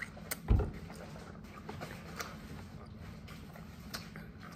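Soft chewing with scattered mouth clicks while eating a crunchy bell-pepper sandwich, and one low thump about half a second in.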